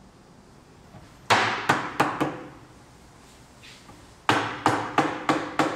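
Mallet blows on a walnut table frame, knocking glued joints home: four quick strikes about a second in, then five more near the end, each with a short ring.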